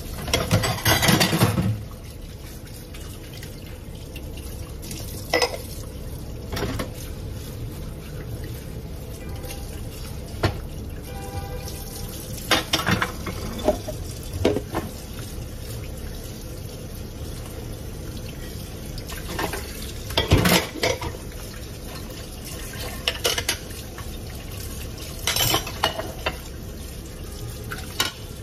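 Kitchen tap running steadily into the sink while dishes are washed by hand, with plates and containers clattering now and then. The loudest clatters come about a second in and again about two-thirds of the way through.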